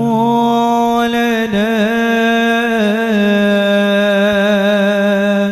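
One voice singing a single long drawn-out note, with a wavering ornamented run about one and a half to three seconds in, then held steady again.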